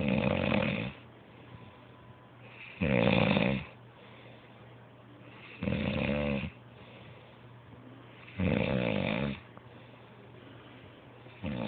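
Loud snoring: five rasping snores, each lasting under a second, about three seconds apart, with quiet breathing between.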